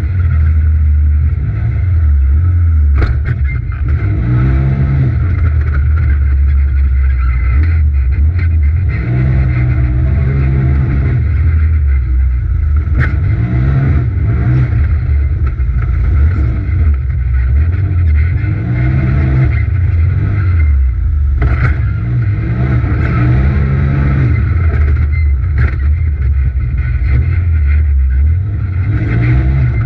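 Polaris RZR XP Turbo's turbocharged twin-cylinder engine at racing throttle, heard from inside the cab, its pitch rising and falling again every few seconds as it accelerates and backs off around the track. A few sharp knocks come through along the way.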